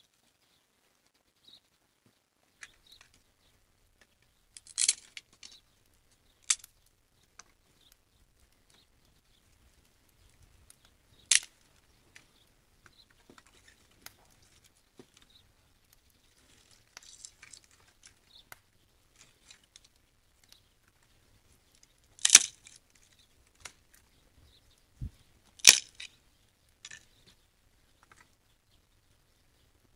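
Dry firewood sticks being handled and a small wood fire being lit with matches: a handful of short, sharp scrapes and snaps several seconds apart, the loudest two about two-thirds of the way through, with faint scattered ticks between.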